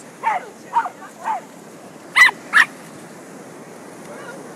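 A four-month-old puppy yapping: three short yaps that drop in pitch, then two louder, sharper barks about two seconds in.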